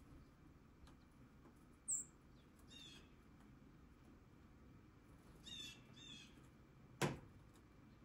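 Faint calls of small backyard songbirds: a thin, high falling note about two seconds in, then a few short buzzy calls. About seven seconds in there is a single sharp click, the loudest sound.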